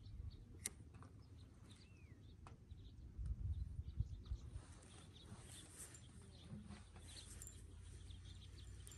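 Quiet outdoor ambience by the water: a low rumble of wind on the microphone with a few light knocks and clicks, the loudest about three to four seconds in, and one faint bird chirp.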